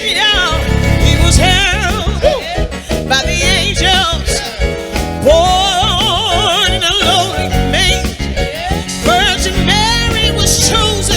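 Gospel song: a lead singer's wavering, ornamented vocal runs and held notes over band accompaniment with a strong bass.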